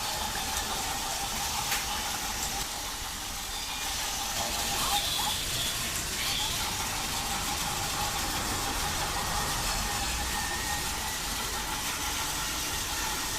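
Battery-powered Trackmaster 2 Talking Percy toy locomotive running on plastic track: its small electric motor gives a steady whine over a hissing background.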